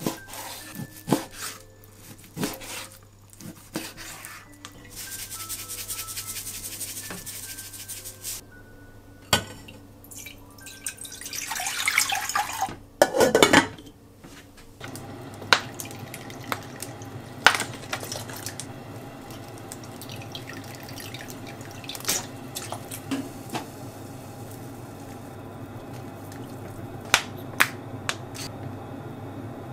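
A kitchen knife chopping raw chicken thigh on a plastic cutting board, then water rushing into a saucepan, rising in pitch as it fills. A steady hiss follows as the pot heats on a gas burner, with scattered light clinks of a metal measuring spoon against the pot.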